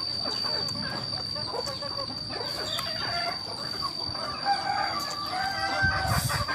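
Chickens clucking and calling close by, with one long drawn-out call about four and a half seconds in.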